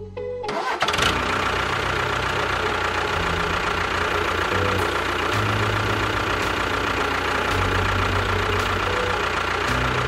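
Tractor engine running steadily. It comes in about half a second in and holds at an even level.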